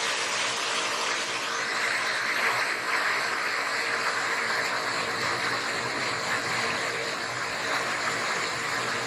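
Waterfall: steady rushing of falling water, a little brighter and stronger from about a second and a half in.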